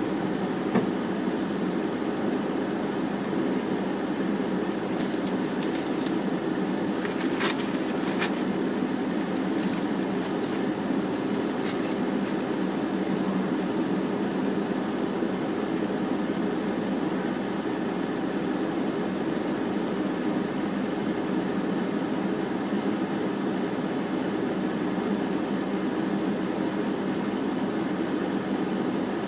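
Steady hum inside a parked car's cabin, typical of the car sitting at idle with its air conditioning blowing. A few faint clicks come between about five and twelve seconds in.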